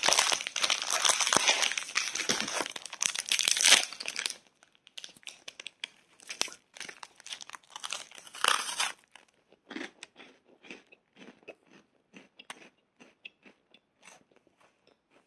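Foil wrapper of a Knoppers wafer bar crinkling for the first four seconds or so, then crunchy bites and chewing of the wafer, with a louder crunch about eight seconds in.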